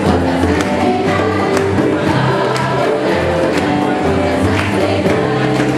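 A group of voices singing together over instrumental backing with a bass line and a steady beat.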